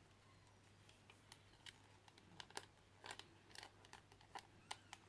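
Faint, scattered plastic clicks and taps of a small figure being handled and fitted onto its stand, over a low steady hum.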